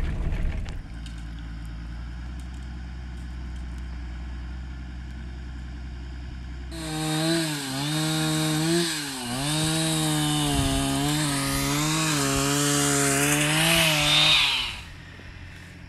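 Chainsaw idling low, then revved up about seven seconds in and cutting limbs off a felled tree for about eight seconds. The engine pitch dips as the chain bites, then it drops back near the end.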